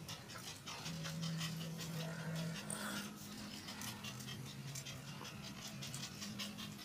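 An American Eskimo dog panting and moving about its cage, with quick light clicks and taps of paws on the slatted floor and bars.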